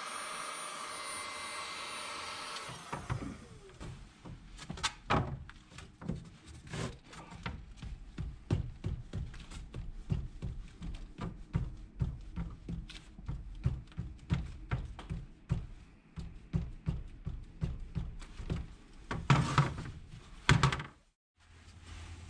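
A Black & Decker heat gun blowing steadily, cut off about three seconds in; then a long run of knocks, one or two a second, from a hammer tapping on the shoe, the loudest near the end.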